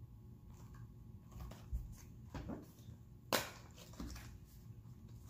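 Cardboard Pocky Almond Crush box being handled and opened: scattered crinkles and clicks of the paperboard, with one sharper snap about three seconds in.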